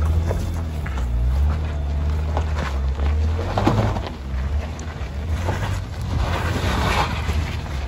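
Jeep Cherokee KL's engine running at low revs as it crawls over rocks, a steady low rumble, with tyres crunching and scraping on rock and gravel in short clicks and crackles. Some wind on the microphone.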